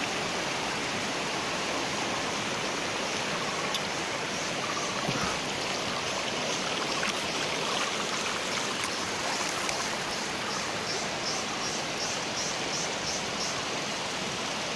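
Shallow river water rushing over a rocky bed: a steady, even rush of flowing water.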